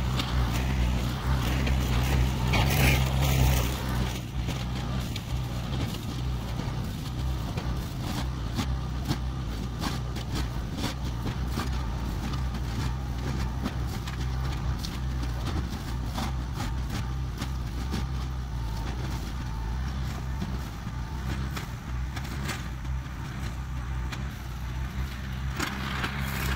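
38-horsepower tractor engine running steadily under load while it drives a front-mounted hydraulic brush cutter through low brush, with faint scattered ticks. It is loudest in the first four seconds, then holds level.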